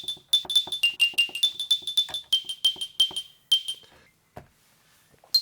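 A water-drop sample played as notes on a keyboard through the iZotope Iris 2 sampler: quick plinking notes, each a sharp click with a short ringing tone, stepping between a few pitches. The playing stops about four seconds in and starts again right at the end.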